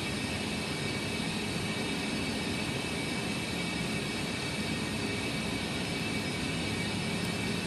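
Steady rushing background noise with a faint high whine running through it.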